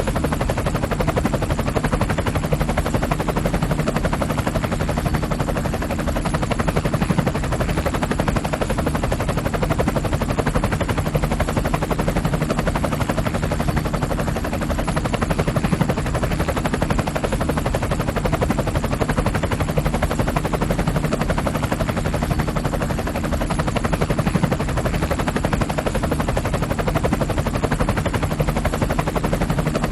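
Voice Changer Plus app's helicopter sound effect: a steady, rapid chopping rattle like rotor blades, running at an even level.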